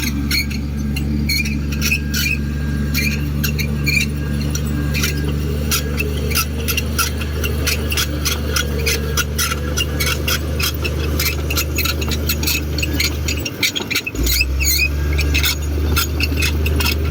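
Komatsu D58 bulldozer's diesel engine running steadily under many rapid, high squeaks and clicks. The engine's low note drops out briefly about three-quarters of the way through and comes back louder.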